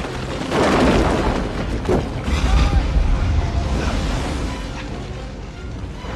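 Volcanic eruption sound effects in a film soundtrack: a loud blast about half a second in, then deep rumbling with booms from about two seconds in that slowly fades, with a music score underneath.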